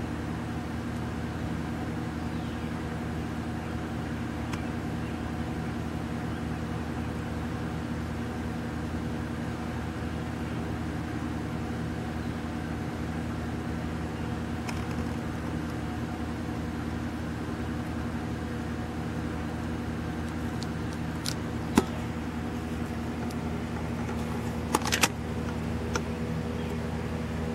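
Steady low mechanical hum with several fixed tones, with a few sharp clicks and knocks near the end.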